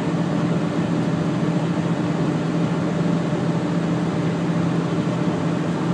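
Steady engine hum and road noise inside the cab of an empty semi-truck cruising on the highway, with a constant low tone under a broad rush of tyre and wind noise.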